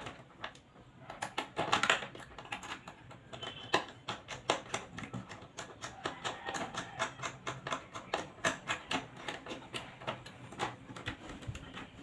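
Rapid light clicking from hand work on a wall power outlet as it is assembled and fastened: a few louder clicks at first, then a fairly even run of about four to five clicks a second.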